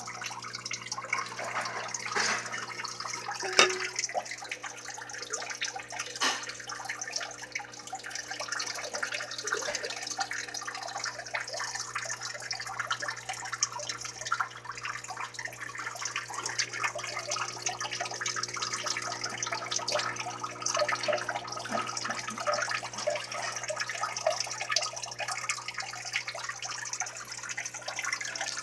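Steady trickling of running water, full of small irregular clicks, over a low steady hum, with one sharper click about three and a half seconds in.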